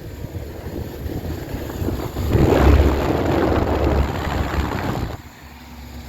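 Wind buffeting the microphone: a low, noisy rumble that swells in a gust about two seconds in and drops away suddenly near the end.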